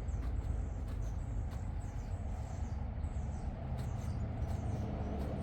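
Small birds chirping faintly in short high calls over a steady low rumble, with a few light clicks.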